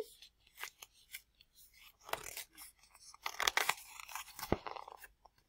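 Pages of a picture book being handled and turned: faint paper rustling and crinkling in short bursts, the busiest stretch a little past the middle.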